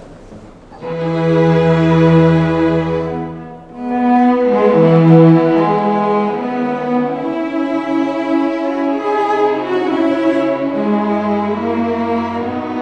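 String orchestra playing a national anthem in long held chords. It enters about a second in, breaks off briefly a little before four seconds, then plays on.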